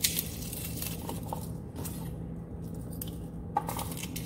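Garlic being handled for cooking: a few irregular small clicks and taps, over a low steady hum.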